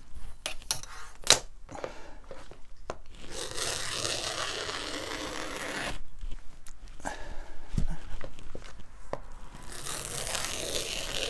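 Rotary cutter rolling freehand through half-inch synthetic upholstery padding. It makes a noisy hiss in long strokes, from about three to six seconds in and again near the end. A few sharp clicks come in the first seconds, the loudest about a second in.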